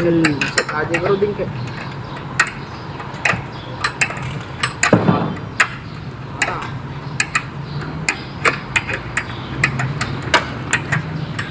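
Irregular sharp metallic taps and knocks, about one or two a second, from bolts, brackets and tools on a metal sidecar roof frame being assembled. A heavier thud comes about halfway through, over a steady low workshop hum.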